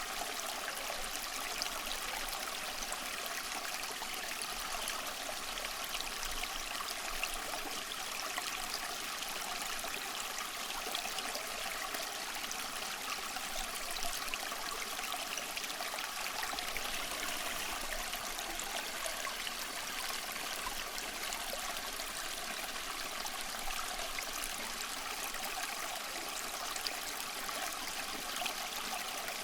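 Stream water running and trickling steadily, a continuous even splashing with fine bubbling detail.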